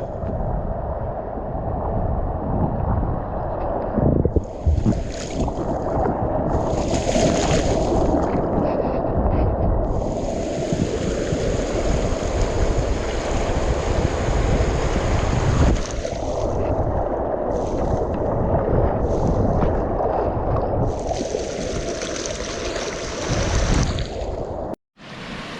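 River water rushing and splashing around an inner tube, with wind buffeting the microphone; the hiss swells and fades several times. The sound breaks off abruptly near the end.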